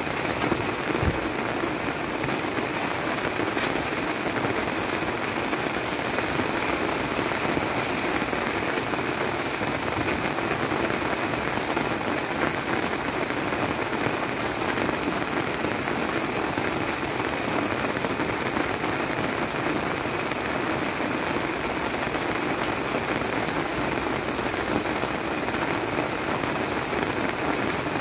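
Steady rainy-season (jangma) rain falling on wet garden leaves, an even, unbroken hiss of drops.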